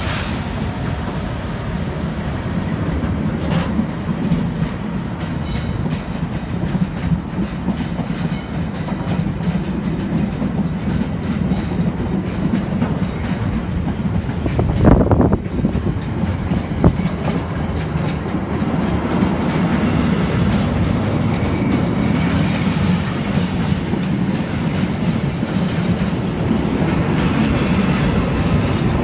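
Intermodal freight train's container flat wagons rolling past close by: a steady rumble with the wheels clattering over rail joints. Two sharp clunks stand out about fifteen and seventeen seconds in.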